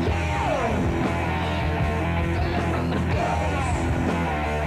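Rock music with electric guitar, with a falling pitch glide about half a second in.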